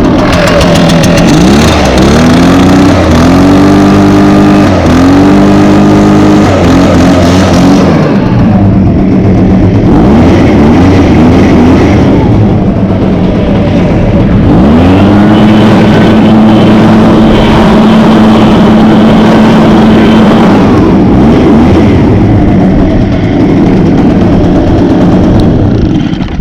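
Echo PB580T backpack leaf blower's 58.2 cc two-stroke engine running and being revved: several quick throttle blips in the first seconds, a lower steady run, then held at high throttle for about six seconds before dropping back. The engine runs smoothly, freshly started on two pulls.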